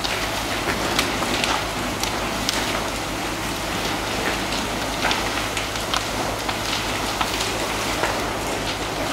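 Burning timber crackling with irregular sharp pops under the steady hiss and patter of fire-hose water jets spraying onto the burning stacks, over a low steady hum.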